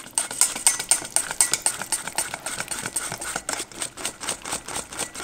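Wire balloon whisk beating condensed milk and vanilla in a stainless steel bowl by hand, the wires clicking against the metal in a fast, even rhythm of several strokes a second.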